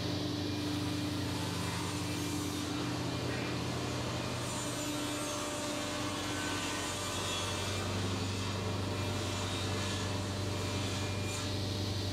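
Steady machine hum of woodworking-shop machinery running. Its low tones shift slightly about two seconds in and again near eight seconds.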